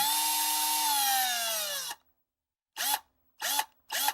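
Electric power drill running at full speed, then winding down with its pitch falling until it stops about two seconds in. It is then triggered in three short bursts, each briefly spinning up and dropping off again.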